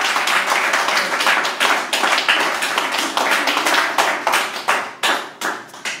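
Audience clapping: dense at first, then thinning to a few scattered claps and fading out near the end.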